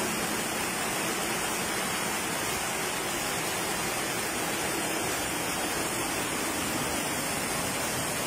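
Muddy flash-flood water rushing steadily, an even, unbroken noise.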